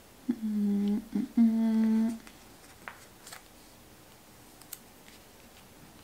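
A woman humming two short, level notes, the second a little longer, in the first two seconds. A few faint clicks follow.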